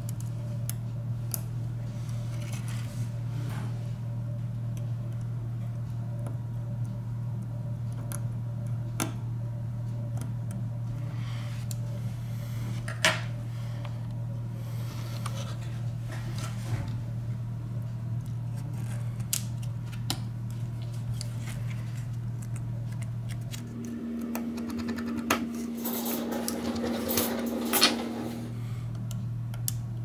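Small clicks and taps of tweezers and a pry tool working on a Samsung Galaxy A3's internal parts, over a steady low hum. There is one sharp click about halfway, and a busier run of clatter near the end.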